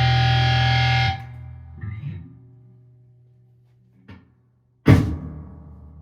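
Distorted electric guitar chord ringing out, then cut off sharply about a second in. After a near-quiet stretch with a few small noises, a single loud hit comes near the end and dies away.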